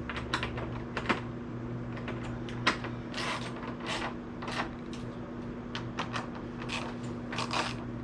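Hand tools, bolts and motorcycle body plastics being handled during reassembly: irregular clicks, knocks and short bursts of rapid clicking, over a steady low hum.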